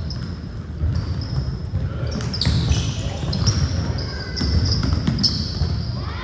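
Basketball being dribbled on a gym court, with repeated thumps and many short high squeaks, clustered in the second half, that fit sneakers on the hardwood during youth game play.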